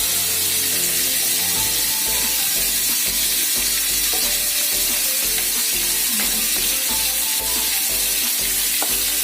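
Minced beef frying in hot cooking oil, a steady sizzle, with garlic just added and being stirred in.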